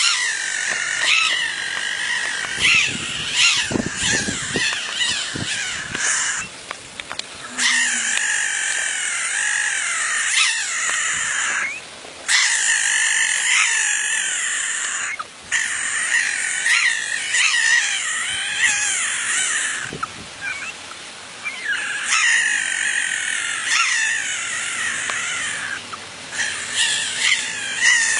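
Frog calling in long, wavering, rising and falling stretches that sound like a motorcycle revving, broken by short pauses.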